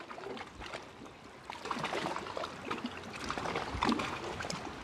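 Plastic LEGO Technic beams and pins being handled and pressed together: a run of small irregular clicks and rattles, busier in the second half.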